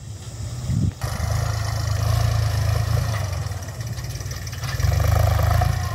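Iseki 35 tractor's diesel engine running steadily under load while pulling a disc plough through dry soil, a low drone that swells near the end.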